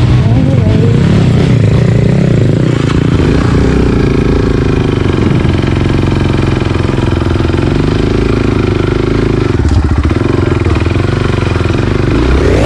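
Dirt bike engine running at low, fairly even revs while the bike is ridden slowly over a rough trail.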